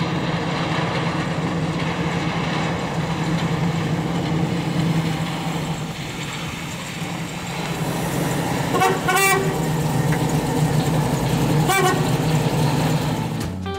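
Swapped-in 6.0-litre LQ9 V8, with an aftermarket cam and headers, running at low speed in a 1986 Oldsmobile Cutlass 442 as it drives slowly past. The exhaust note is steady, dipping slightly about six seconds in and then rising again. There are two brief high-pitched squeals, one about nine seconds in and a shorter one near twelve seconds.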